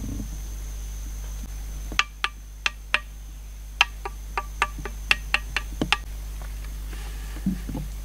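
A freshly fired clay pot being tapped by hand: about fourteen sharp, irregular taps over four seconds, starting about two seconds in. Each tap rings briefly at a clear pitch.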